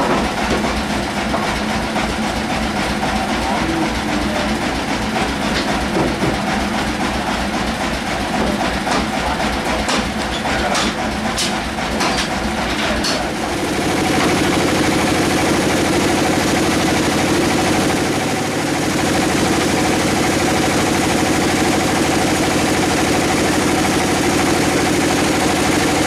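Sawmill bandsaw machinery running, with a steady low engine beat and a few sharp knocks about ten to thirteen seconds in. About fourteen seconds in it changes to a louder, steady machine hum.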